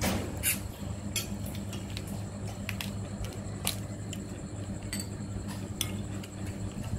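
Cutlery and dishes clinking now and then, about half a dozen sharp taps, over a steady low hum.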